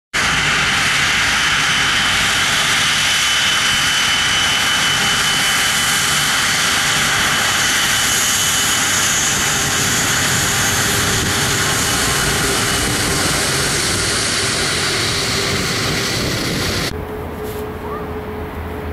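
Airbus A330-300 jet engines at takeoff power as the airliner starts its takeoff roll: a loud, steady rush with a high whine. Near the end the sound cuts abruptly to a quieter, steady hum.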